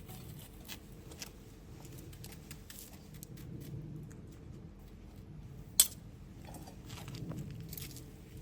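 Light, irregular clicks and scrapes of a kitchen knife being worked, with one sharp click about six seconds in.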